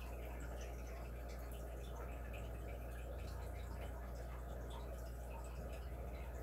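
Quiet room tone: a steady low hum under faint background noise, with scattered faint ticks.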